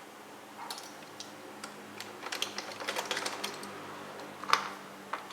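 Hard plastic clicking and clattering as a Roomba's unscrewed bottom faceplate is worked loose by hand, side to side: irregular clicks, thickest in the middle, with one louder knock near the end.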